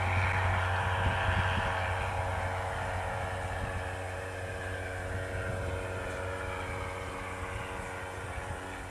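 ATV (four-wheeler) engine running with a steady drone that slowly grows fainter.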